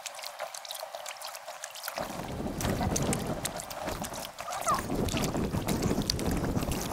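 Kayak paddling on a river, sped up in time lapse: a busy run of paddle splashes and dripping water, with wind on the microphone.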